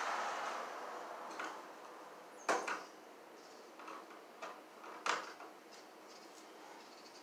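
Hand screwdriver working at a metal electrical box: scattered small clicks and metal scrapes, with two sharper clicks about two and a half and five seconds in.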